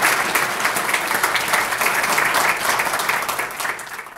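Lecture audience applauding, a dense patter of many hands clapping that eases off near the end.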